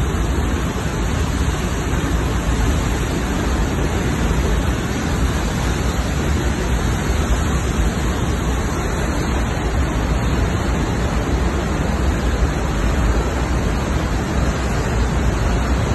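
Swat River in flash flood: a muddy torrent rushing past the bank, a loud, steady rushing noise with a deep rumble underneath.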